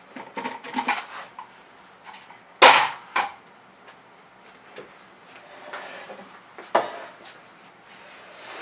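Steel bar clamps being released from a wooden forming block: a few light clicks, then two sharp metal clanks about a third of the way in as a clamp is set down. Later the wooden form blocks slide across the workbench, ending in a wooden knock.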